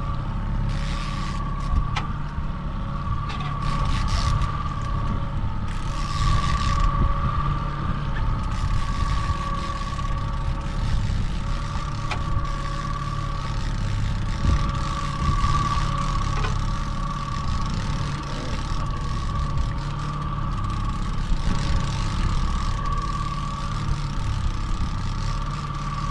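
Boat motor running steadily, with a low rumble and a wavering whine. Bursts of hiss come over it in the first several seconds.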